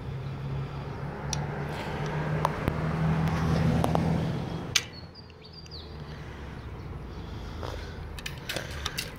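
Shopping-trolley coin lock worked with a key in place of a coin: one sharp click about halfway through, then a cluster of small clicks near the end as the chain's plug is pulled free. Under it runs a low steady hum that swells and then fades over the first half.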